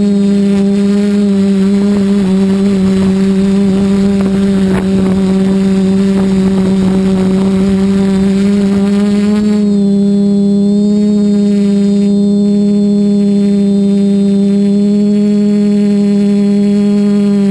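Multirotor drone's electric motors and propellers whirring with a steady hum. A rushing noise under the hum drops away about ten seconds in, as the craft climbs off the ground.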